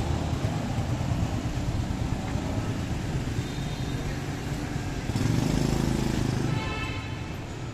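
Street traffic noise of passing motor vehicles. A louder vehicle rumbles past about five seconds in, and a short high pitched tone, like a horn, sounds near the end.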